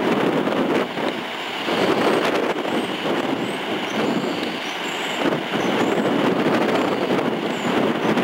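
Whirlpool Aero Car cable car running along its steel support cables: a steady rushing rumble, with faint high squeaks now and then.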